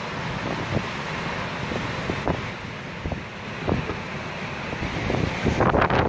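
Strong wind buffeting the microphone in irregular gusts, over the steady rush of breaking surf.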